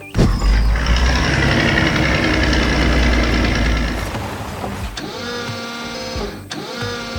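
Heavy construction machine's engine sound effect: a loud mechanical rumble that starts suddenly, then turns into a pitched running tone about five seconds in, with two short dips.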